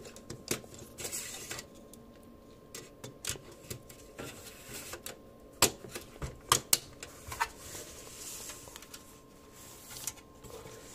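Light clicks, taps and rustling from hardware being handled: a small metal computer case and its parts being turned over and set down, with a cluster of sharper knocks a little past the middle.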